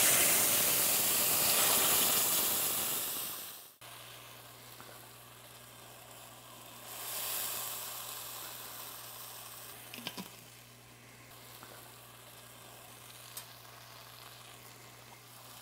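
Tomato sauce sizzling in a sauté pan as it hits hot olive oil and garlic over medium-high heat, loud and even at first and cutting off abruptly at about four seconds. After that, a quieter sizzle as the sauce is stirred, with a few light clicks.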